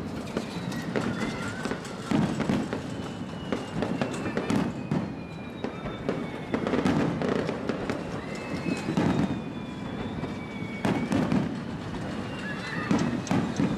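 Aerial fireworks display at its finale: shell bursts booming and crackling in quick succession, one every second or two, with thin high whistles that slowly fall in pitch.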